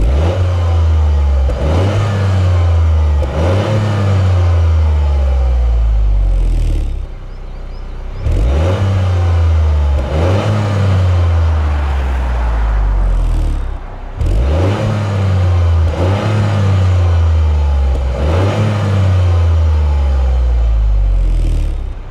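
Exhaust of a Toyota GR Yaris's turbocharged 1.6-litre three-cylinder engine, free-revved while stationary. There are three runs of quick rev blips, and each run falls back to idle.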